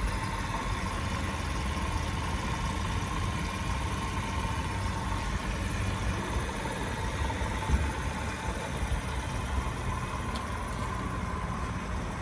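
Honda Z50J Monkey bike's 49 cc single-cylinder four-stroke engine idling steadily.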